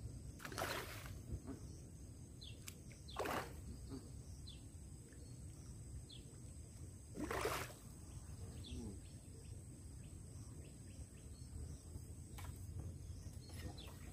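A hooked carp splashing at the surface three times as it is played in close to the bank, each splash a brief rush of water. Faint short bird chirps repeat in the background.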